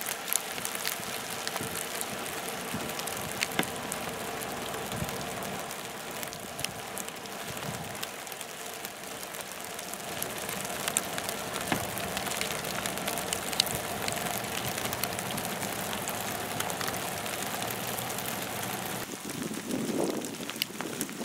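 Freezing rain and sleet falling on an ice-glazed car: a steady hiss dotted with many small sharp ticks of ice pellets hitting the glass and metal, over a faint steady hum.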